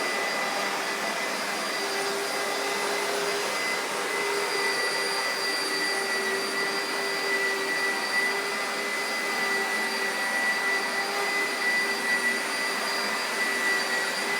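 Vacuum cleaner running steadily: an even rushing hiss with a high motor whine.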